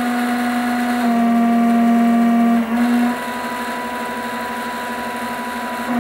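Stepper motors of a home-built Momus CNC v2.0 router whining as the gantry traverses through a g-code test program at reduced (30%) feed speed, with no cutting. A louder, lower whine changes about three seconds in to a quieter, higher steady tone as the move changes.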